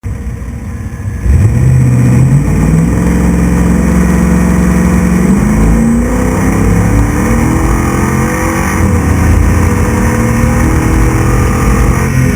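A 6100-class desert race truck's engine accelerating hard, its note climbing and dropping back at gear changes, loud from about a second in.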